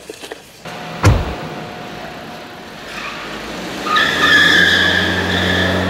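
A car door shuts with a heavy thump about a second in. Then the car's engine rises as it pulls away, and its tyres squeal on the smooth parking-garage floor.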